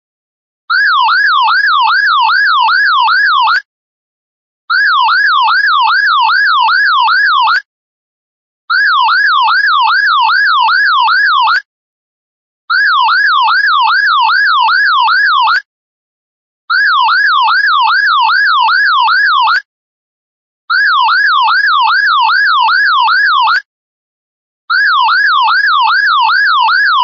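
Loud electronic alarm sounding in repeated bursts of about three seconds with a one-second pause between them. Each burst is a fast warbling tone sweeping up and down about three times a second.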